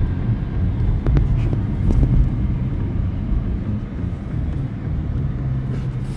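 Road and engine noise inside a moving car's cabin: a steady low rumble, with a couple of brief clicks about one and two seconds in.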